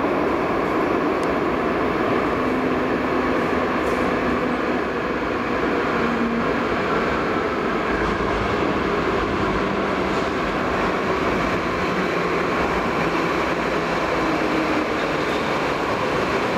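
Light-rail tram approaching through an underground tunnel and pulling into the platform near the end: a steady running noise of wheels on rail, with faint humming tones.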